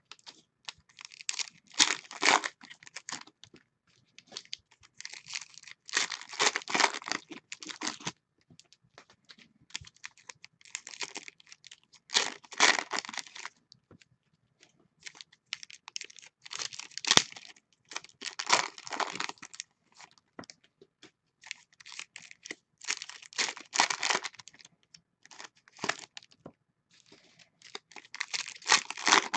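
Foil wrappers of Donruss football card packs being torn open and crinkled by hand, in about a dozen separate bursts of a second or two with short quiet gaps between.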